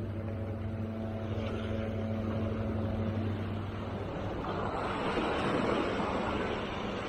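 A steady, low engine hum fades out about four seconds in. Then waves surge and break against the rocks of a jetty, their rushing getting louder toward the end.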